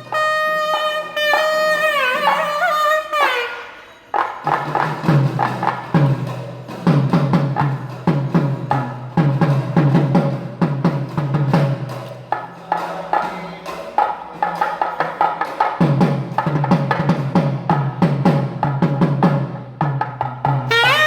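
Traditional-sounding music: a held wind-instrument melody slides down and breaks off about three and a half seconds in, then drums and percussion take over in a steady, repeating rhythm.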